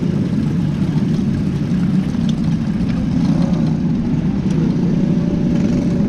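Cadet-class winged sprint car's engine idling steadily, with no revving.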